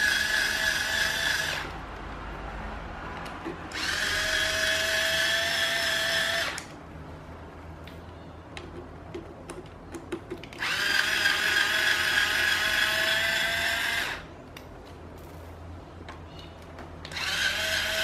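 Small cordless electric screwdriver backing out Phillips screws from a fan's plastic motor housing. It runs in four spurts of a few seconds each with a steady whine, stopping between screws, with small handling clicks in the pauses.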